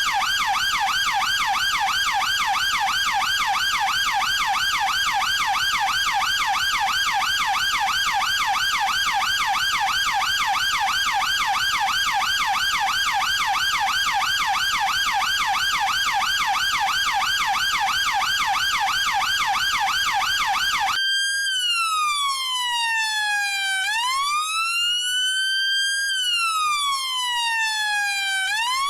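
UK police siren sounding a fast yelp, its pitch warbling up and down several times a second. About three-quarters of the way through it switches abruptly to a slow wail that falls and rises over a few seconds each way.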